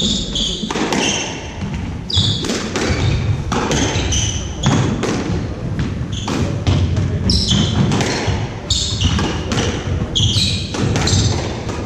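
Squash rally: the ball repeatedly smacks off rackets and the court walls, mixed with short high squeaks of court shoes on the wooden floor and the thud of footsteps.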